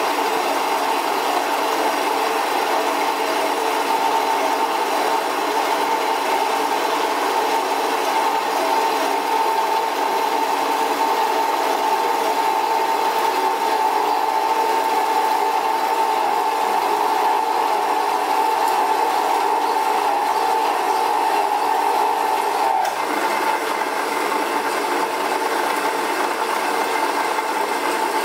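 7x12 horizontal metal-cutting bandsaw, driven by a motor taken from a Craftsman power hacksaw, running with its blade cutting through a roughly 1.5 inch round aluminum bar: a steady whine from blade and motor over the rasp of the cut. About three quarters of the way through, the held tone stops abruptly and the sound turns higher.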